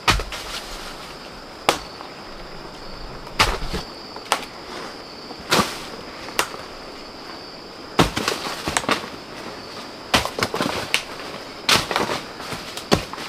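Irregular sharp knocks, a second or two apart at first and then coming in quick clusters in the second half, over a steady high insect drone.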